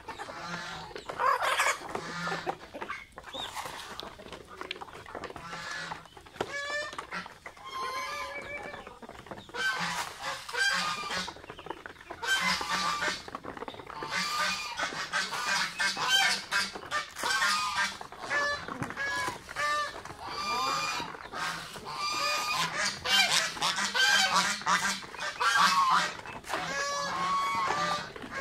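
Domestic geese honking in many short, repeated calls among a feeding flock of chickens and ducks.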